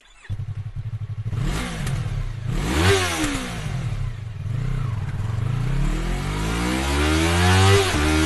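Yamaha MT-03 parallel-twin engine breathing through an Akrapovic exhaust, revved with the bike standing still. It blips up and back down about three seconds in, gives a smaller blip near four seconds, then climbs steadily to high revs and falls off sharply near the end.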